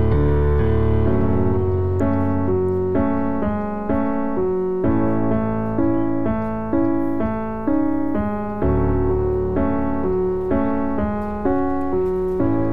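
Slow piano music: a chord struck about once a second, each left to ring and fade before the next.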